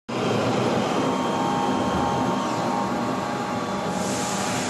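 Friction welding machine running with a steady mechanical noise and faint whining tones; a higher hiss comes in about four seconds in.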